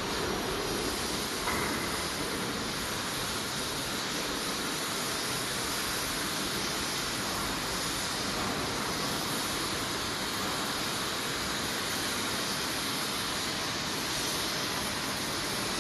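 Steady, even rushing noise of running industrial machinery, with no clear tone or rhythm and a small bump about a second and a half in.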